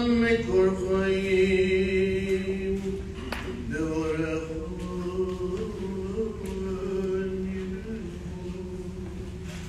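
A man's voice chanting solo and unaccompanied, holding long notes that step and slide slowly between pitches, with a brief break about three and a half seconds in.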